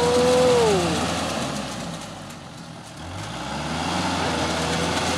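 Small diesel farm tractor engine working while stuck in deep mud: the revs fall away about a second in and the engine runs low and quieter, then it revs back up about three seconds in and runs steadily.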